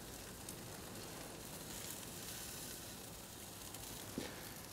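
Chicken thighs sizzling faintly and steadily on a charcoal grill's grate over hot coals.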